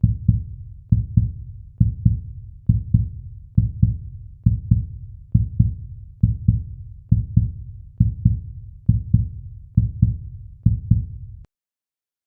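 Heartbeat sound effect: low, paired lub-dub thumps at a steady rate of a little over one beat a second. The beats stop about eleven and a half seconds in.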